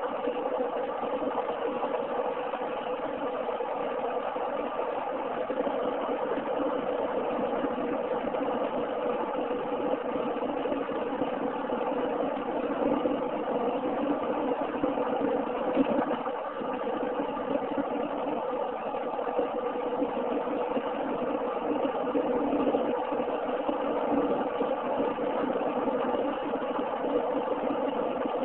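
Car driving along a highway, heard from inside the cabin: steady engine and tyre noise with a constant hum.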